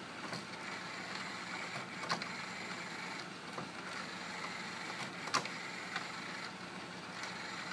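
Multi-disc CD changer mechanism of an RCA RS2664 compact stereo cycling through its disc trays: a small motor runs steadily, with a few sharp clicks, the strongest about two and five seconds in, as the changer checks each tray for a disc.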